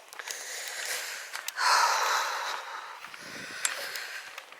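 A person breathing close to the microphone, with the loudest breath about one and a half to two seconds in.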